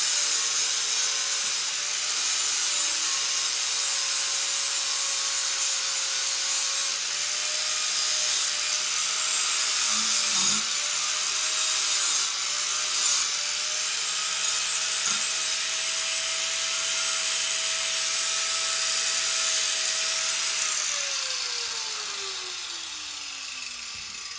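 Handheld electric power tool sanding metal bands smooth, a steady abrasive hiss over the motor's whine; about 21 seconds in, the trigger is released and the motor winds down with a falling pitch.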